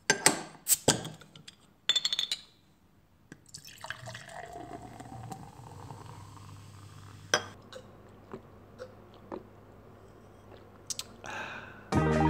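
Sound effects for an intro logo animation: a few sharp glassy clinks, then dripping and liquid sounds with a gliding tone and scattered small clicks, a short whoosh, and music starting at the very end.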